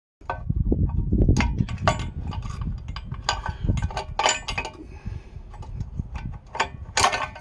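A hand tool clinking and scraping against the steel springs and retainer clips of the parking-brake shoes on a rear brake backing plate: a run of irregular metallic clicks, with a louder clatter about seven seconds in and a low rumble in the first two seconds.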